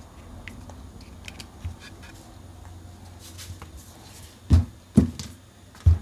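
Drain pump motor of an LG front-loading washing machine running on 230 V, a faint steady low hum, then three dull knocks in the last second and a half from the motor being handled.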